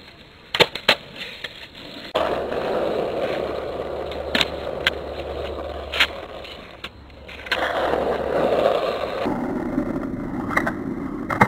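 Freestyle skateboard on asphalt: sharp clacks of the deck and wheels hitting the pavement as the board is flipped and landed, a cluster of them about half a second in and more scattered later, and two stretches of steady wheel rumble as it rolls along the road.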